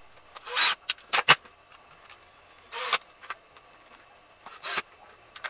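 Cordless drill-driver run in several short bursts, driving the housing screws of a corded screwdriver back in. There is a cluster of sharp clicks and knocks about a second in.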